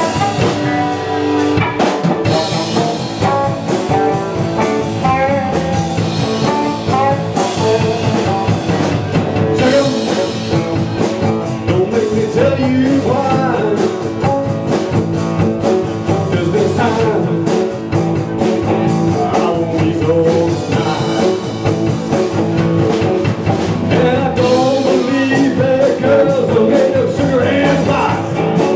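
Live blues-rock band playing: guitar and drum kit, with pitched notes bending up and down over a steady beat.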